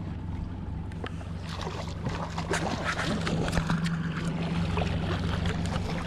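Boat's outboard motor humming steadily at trolling speed, with splashing from about a second and a half in as a hooked trout thrashes at the surface near the boat.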